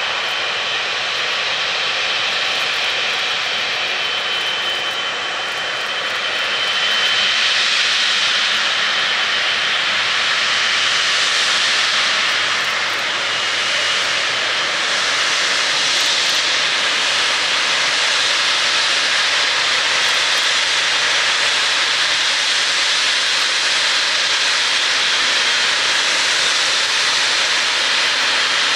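A departing jet airliner's engines running loudly at close range. A thin high whine fades as the noise grows louder about seven seconds in, and the noise then holds steady.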